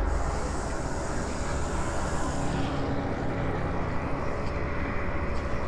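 Dark ambient drone of an intro soundtrack: a steady low rumble with faint held tones.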